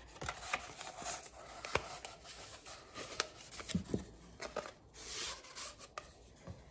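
Paper and packaging being handled close by: rustling and crinkling with scattered small clicks and taps, and a longer rustle about five seconds in.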